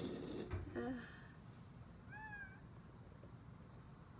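A cat meows once about two seconds in, a single short rising-and-falling call.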